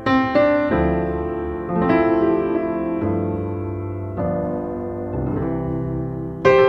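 Background piano music: chords struck about once a second, each left to ring and fade.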